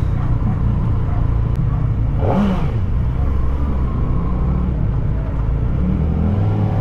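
Kawasaki ZX-4RR's inline-four engine running steadily while the bike is ridden, with a brief swelling sound about two seconds in.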